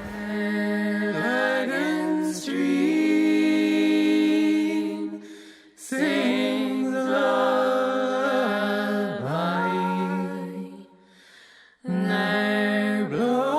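Music: a singing voice with little or no accompaniment, holding long notes that slide between pitches. It pauses briefly about five and a half seconds in and again near eleven seconds.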